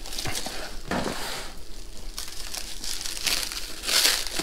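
Clear plastic wrap crinkling as hands handle a plastic-wrapped cardboard box, in irregular crackles that get louder near the end.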